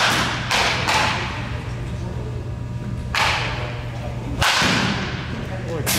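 Baseball batting practice in an indoor cage: sharp cracks of the bat meeting pitched balls, with balls hitting the cage, about five sharp impacts spaced unevenly, each with a short echoing tail. A steady low hum sits underneath.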